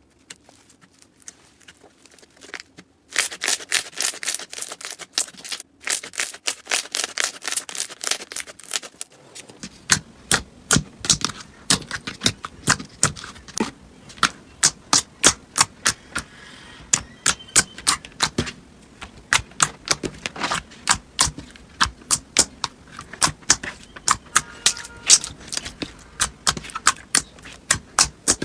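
Slime being pressed and worked by hand, making sharp clicking and popping sounds. About three seconds in, a fast run of crackling clicks starts. From about ten seconds in, it gives way to slower, separate pops, three or four a second.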